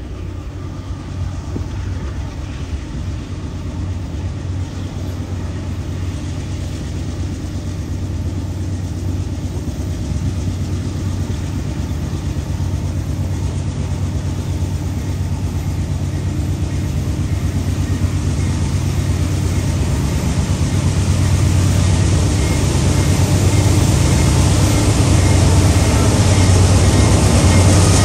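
GE C40-8W diesel-electric locomotive at the head of a freight train, its 16-cylinder diesel engine running with a steady low drone that grows louder as the train approaches.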